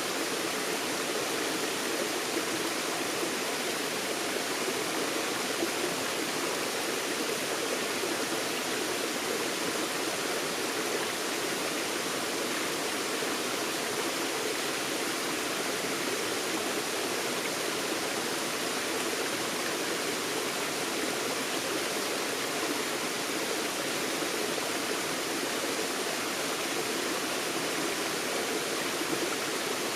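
A forest stream running over rocks, a steady rushing and splashing of water with no change in level.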